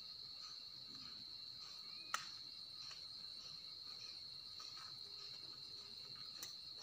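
Insects calling in a steady, high-pitched drone, with faint pulses about twice a second and a single sharp click about two seconds in.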